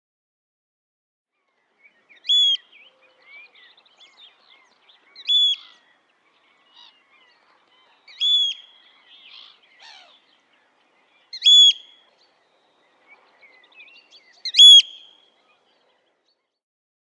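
Eurasian oystercatcher calling: five loud, short, high piping calls spaced about three seconds apart, with fainter chirps in between.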